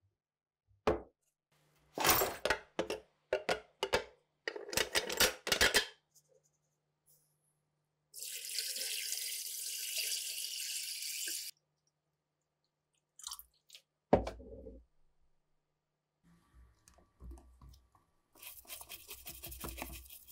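Several sharp clattering knocks in the first few seconds, then water poured steadily for about three seconds onto rusty springs and metal parts in a glass tank. A single knock follows, and near the end a brush scrubs rapidly over the airgun's grip in a tub of liquid.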